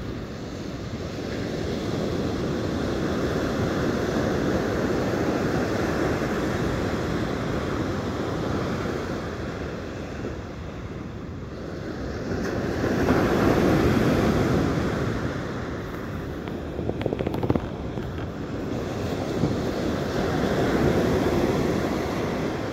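Ocean surf breaking on a sandy beach, swelling and easing as each wave comes in, with wind on the microphone.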